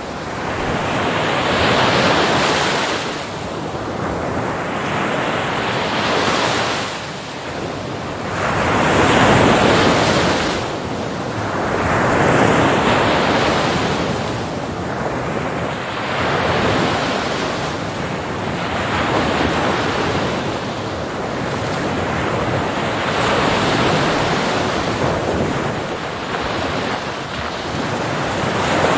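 Ocean waves breaking on a beach, the surf swelling and fading in a steady rhythm every few seconds.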